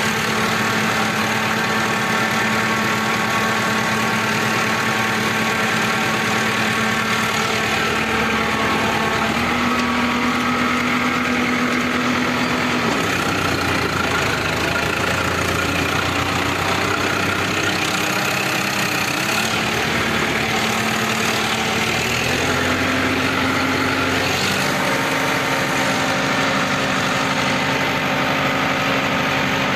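Preet 6049 tractor's diesel engine running steadily under heavy load while pulling a 13-tine cultivator through soil. Its note dips about halfway through and climbs back a few seconds later.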